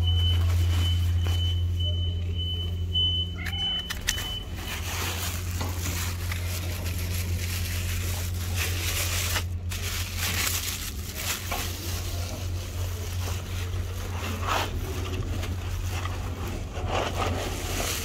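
A motor vehicle's engine running close by as a steady low hum, with a repeated high electronic beep at one pitch that stops about four seconds in.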